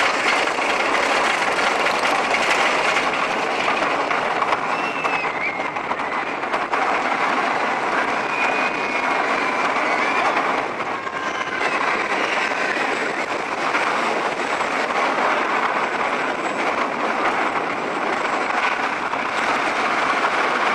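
Amusement-ride train running along its track: a steady loud rumble and rattle, with a few faint high squeals over it.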